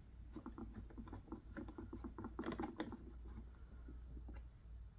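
Faint, irregular light clicks and taps of a small part being handled and fitted against the plastic casing of a Honda EU1000i inverter generator, with a few sharper clicks about two and a half seconds in.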